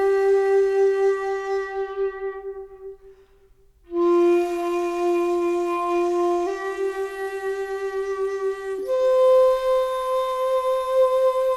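Background music: a slow melody of long, held flute-like notes. One note fades away about three seconds in, and new notes follow at intervals of a few seconds.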